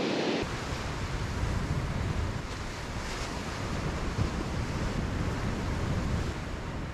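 Ocean surf breaking on the shore as a steady wash. About half a second in, wind buffeting the microphone adds a low rumble beneath it.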